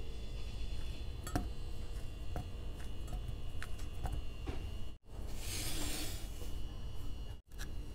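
Banana chunks broken off by hand and dropped into a glass measuring cup: a few light taps and clinks on the glass, with a brief rustle about five seconds in.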